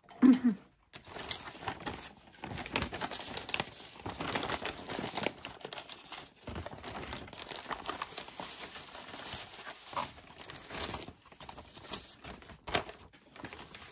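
Plastic packaging crinkling and rustling in fits and starts as hands dig through a poly mailer full of clear plastic bags.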